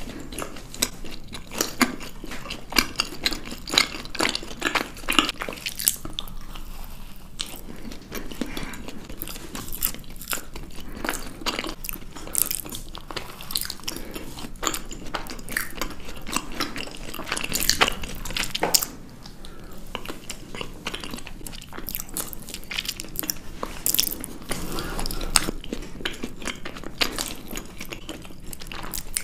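Two people biting into and chewing chocolate-covered chocolate cakes with a cream filling, close to the microphone, with many short, sharp bite and mouth clicks.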